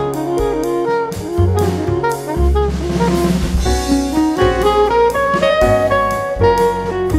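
Background jazz music with saxophone over a steady drum-kit beat.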